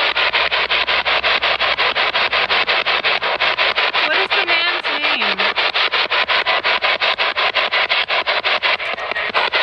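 Handheld spirit box, a radio scanner, sweeping rapidly through radio stations. Its static is chopped into even pulses about five or six times a second, with brief snatches of a radio voice about four to five seconds in.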